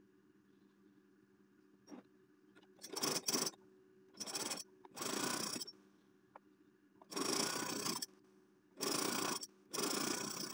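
Sewing work at a sewing machine: six short rasping bursts, each under a second, with the loudest three in the second half, over a faint steady hum.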